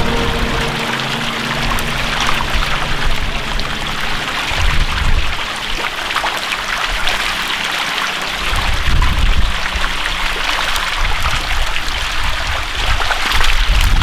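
Water crowded with dying menhaden: a steady rain-like patter of many small splashes and crackles at the surface, with occasional low rumbles.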